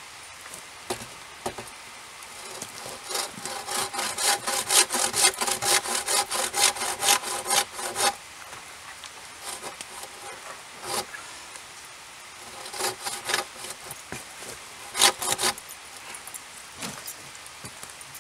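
Bow saw cutting through a log with quick back-and-forth rasping strokes, about three a second, the blade ringing faintly. The run lasts about five seconds, then after a pause come a few scattered strokes.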